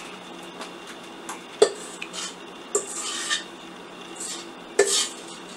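A utensil scraping and knocking against a stainless steel stand-mixer bowl as thick coconut pie filling is scraped out into a pie shell. Three sharp clinks, the loudest about a second and a half in, another near three seconds and one near five seconds, each followed by a short scrape.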